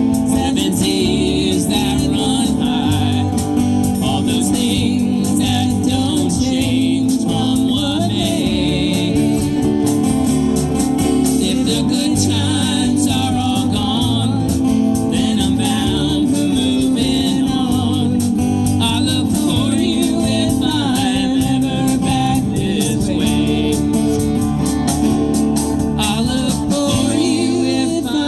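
Live band playing a folk song, with singing.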